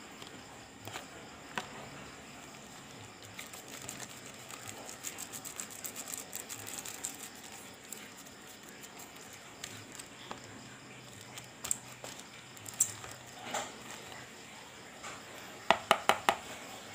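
Faint crinkling and crackling of a small plastic packet as deho bait paste is squeezed and scraped out of it into a plastic basin, with a quick run of sharp taps near the end.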